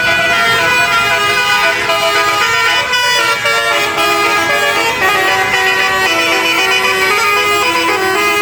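Basuri multi-tone 'telolet' bus horn playing a tune: several tones sound together and step from note to note without a break.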